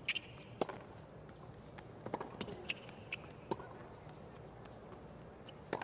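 Tennis rally on a hard court: sharp racket strikes on the ball and ball bounces, a knock every half second to second and a half, with the loudest strike near the end.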